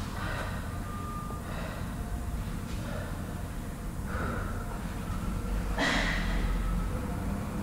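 A person breathing hard during a workout, with a sharp, noisy breath about six seconds in, over a low rumble of gym room noise.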